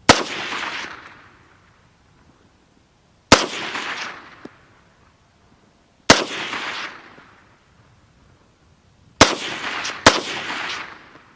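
Five single gunshots from a World War-era firearm, fired a few seconds apart with the last two about a second apart. Each crack is followed by about a second of echo dying away.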